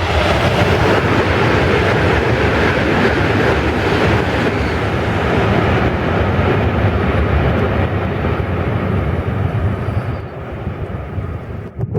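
200 Series Shinkansen train passing through a station at speed without stopping: a loud, steady rush of wheels on rail and air that eases about ten seconds in and cuts off sharply at the end.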